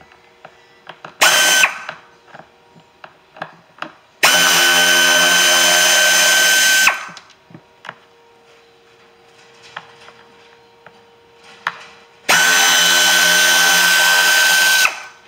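Power drill spinning out the small screws that hold together the plastic HVAC air distribution case: a brief burst, then two steady runs of about two and a half seconds each, with small clicks of handling in between.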